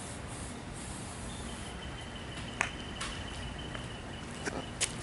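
Several sharp, short clicks, spaced irregularly through the second half, as the PVC potato cannon's spark igniter is triggered without the hairspray charge going off. A faint steady high tone runs beneath them from about a second in.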